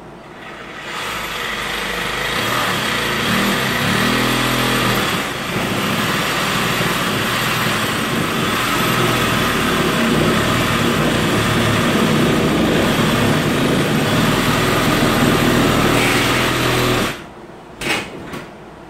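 Cordless reciprocating saw cutting out a section of wall, running steadily for about sixteen seconds with a brief dip about five seconds in, then stopping abruptly, followed by two short bursts near the end.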